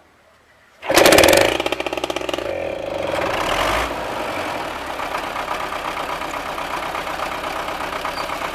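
Tractor's small pony starter engine (пускач) starting suddenly about a second in with fast firing, loudest at first, then running steadily.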